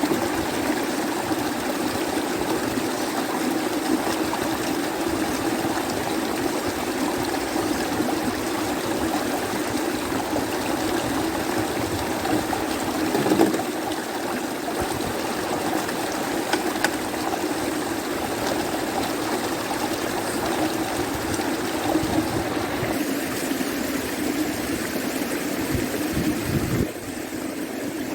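Steady rushing of a river in flood, the water running fast and full, dropping a little in level about a second before the end.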